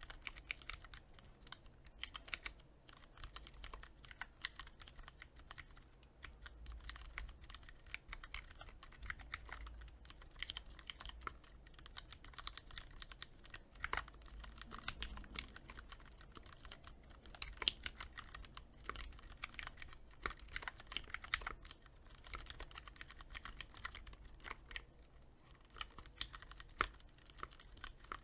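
Typing on a Cherry MX Board 3.0S mechanical keyboard with Cherry MX Red linear switches, lightly lubed with Krytox 105: a steady, uneven run of keystroke clacks with a few short pauses.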